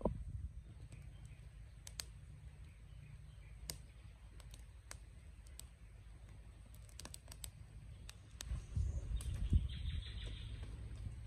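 Small kindling fire catching, with scattered sharp crackles and snaps of burning twigs over a low steady rumble. A louder rustling burst of noise comes about nine seconds in.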